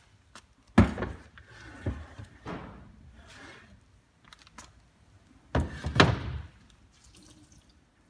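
Handling noise from a plastic reverse-osmosis unit being lifted, carried and set down in a cabinet: a few sharp thunks and knocks, the loudest about a second in and about six seconds in, with softer rubbing and bumping between them.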